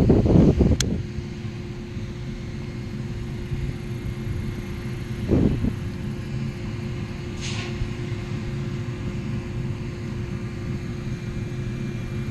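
Wind rumbling on the microphone, with louder gusts at the start and about five seconds in, over a faint steady hum; a single sharp click just under a second in.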